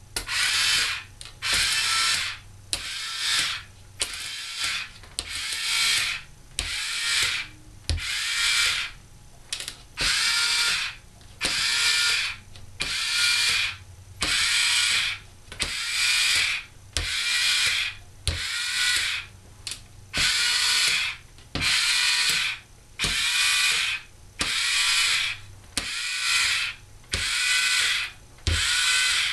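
Electric cookie press motor whirring in short bursts, about one a second, each burst pushing out one tree-shaped cookie onto the baking sheet.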